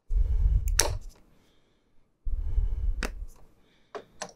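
Sharp plastic clicks and snaps of a printer ink cartridge being handled, its protective clip pulled off and the cartridge pushed into the print-head carriage, over two stretches of low handling thumps about a second long each.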